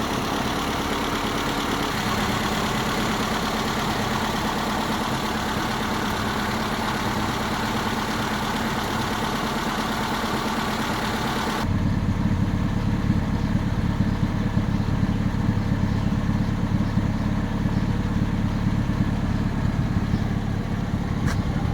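1947 Triumph 1800 Roadster's four-cylinder engine idling steadily. About twelve seconds in, the sound changes abruptly to a deeper, duller idle with the hiss gone.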